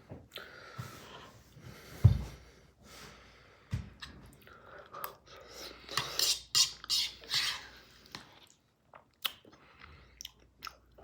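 A person chewing a mouthful of spinach dressed with olive oil and lemon, with irregular wet mouth clicks and smacks, busiest around the middle. A single low thump about two seconds in.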